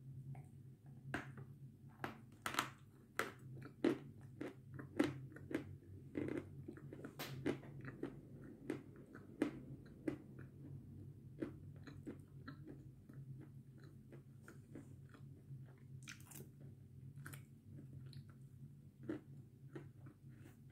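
Close-miked crunching as pieces of chalk are bitten and chewed. Sharp, crisp crunches come thick and fast for about the first ten seconds, then thin out to scattered, softer chews, over a low steady hum.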